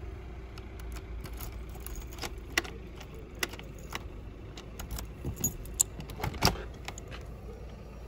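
Keys jangling and clicking at the lock of a uPVC front door, with sharp clicks of the lever handle and latch as the door is unlocked and opened, over a low steady rumble.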